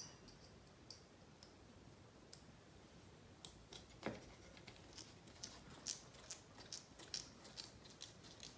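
Faint, light clicks and ticks of a small hex driver turning a small screw into the plastic front end of an RC buggy chassis. The clicks are sparse at first and come several a second from about three and a half seconds in.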